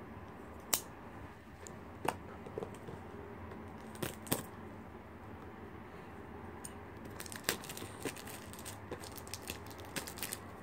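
Plastic shrink-wrap on a football card box crinkling and ticking as the box is turned over in the hand, a few scattered crackles at first and a quicker run of crinkles in the last few seconds as fingers start picking at the wrapper.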